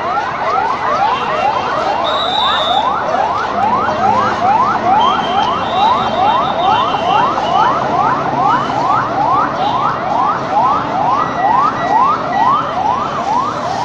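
An electronic siren yelping: quick rising whoops repeated about three times a second without a break, over street crowd and traffic noise.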